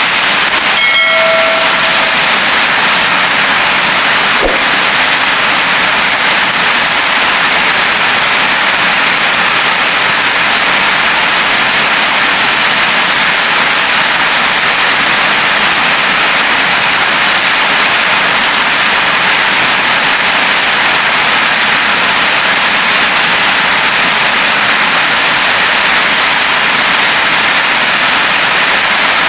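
Heavy rain falling in a steady, unbroken rush. About a second in, a short pitched tone sounds once.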